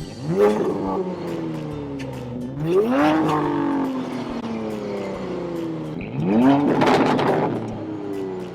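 Porsche Panamera engine revved three times, each rev climbing quickly and falling away slowly, heard through a JBOM Super 100-cell high-flow downpipe and the factory sport exhaust.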